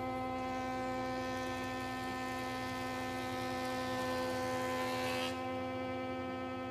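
Thickness planer running with a steady high motor whine while its cutterhead planes a board fed through it. A hissing cutting noise stops abruptly a little over five seconds in as the board clears the knives, and the motor keeps whining. The machine is very loud.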